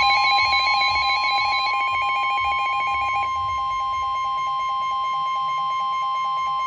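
Several NOAA weather radios sounding their alarms together: the steady Warning Alarm Tone, with the radios' pulsing beeps layered over it. Two of the beep patterns stop partway through, about two and three seconds in. The alarm signals that a warning broadcast is about to follow.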